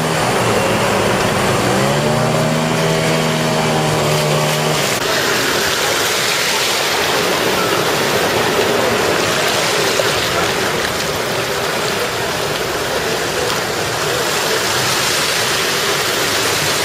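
Floodwater rushing and splashing across a street as vehicles drive through it. For the first five seconds a vehicle engine hums over the water, rising a little in pitch and then holding steady before it fades out, leaving only the rush of water.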